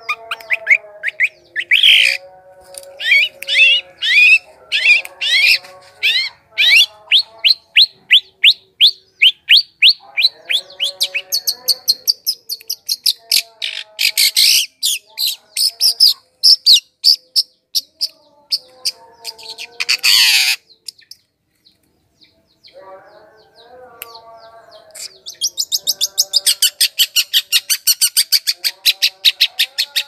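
Shrike song: loud, rapid runs of sharp, high, downward-sweeping chirps repeated several times a second, over a fainter, lower warbling. The chirps break off for a couple of seconds about two-thirds of the way through, then give way to a very fast, high, buzzy trill near the end.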